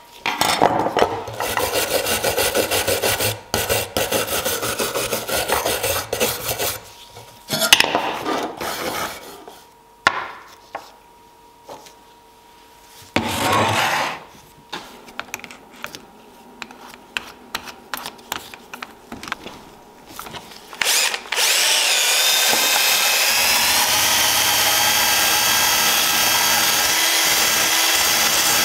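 Hand wire brush scrubbing rust off an old steel drawing compass in rapid strokes, then knocks and clatter as tools are handled and put down. About three quarters of the way through, a cordless drill fitted with a brass wire wheel starts up with a rising whine and then runs steadily against the metal.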